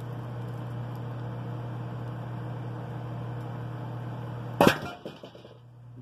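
Microwave oven running with a steady low hum, then, about four and a half seconds in, a single loud sharp bang as the Sharpie highlighter inside explodes.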